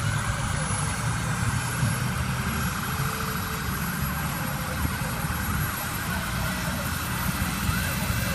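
Police helicopter's engine and rotor running steadily, with a deep rumble throughout and a few short wavering tones near the end.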